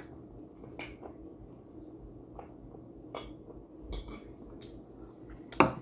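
Quiet eating sounds: a handful of short, sharp clicks and mouth smacks spread over a few seconds, over a low steady hum.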